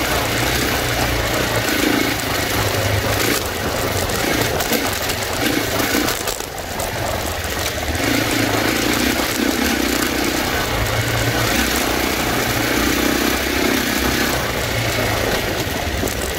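Dirt bike engine running under the rider on a rough rocky trail, the throttle opening and easing off in surges, with a brief let-off about six seconds in.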